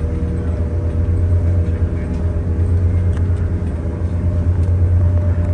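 Airport mobile lounge, a large terminal-to-terminal shuttle vehicle, driving across the apron, heard from inside its cabin: a steady low engine rumble with a faint steady whine above it.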